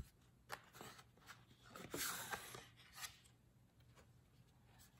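Faint rustling and light clicks of stiff white paper being handled, a Hermès envelope or card turned over and moved, with a fuller rustle about two seconds in.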